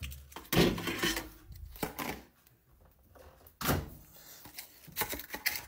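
A handful of separate sharp knocks and thuds as a microwave is loaded with a Hot Pocket and its door is shut.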